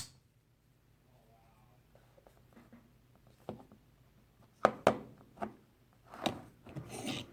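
Pocket knives being handled: a sharp click at the start, then scattered clicks and knocks a few seconds in, and a stretch of rustling handling noise near the end.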